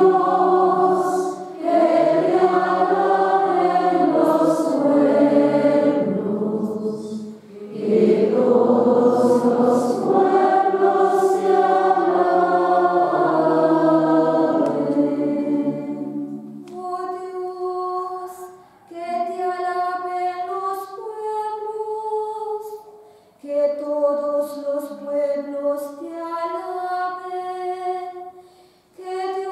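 Choir singing the responsorial psalm at Mass, several voices together. About halfway through it gives way to a single voice singing a verse alone in short phrases.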